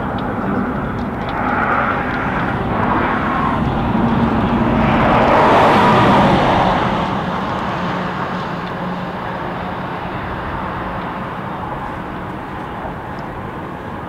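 Outdoor ambience with a passing vehicle, its noise swelling to a peak about six seconds in and slowly fading away over a low steady hum.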